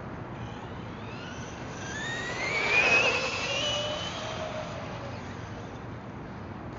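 Traxxas Rustler VXL electric RC truck's brushless motor and 21/83 gears whining under acceleration on a 3S 11.1 V LiPo. The pitch rises over about a second to the loudest point about three seconds in, holds briefly, then fades as the truck runs off.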